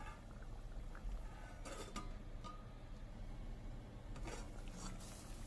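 Stainless steel pot lid clinking lightly against the pot a few times, with short metallic rings, about two seconds in and again near the end, over a low steady hum.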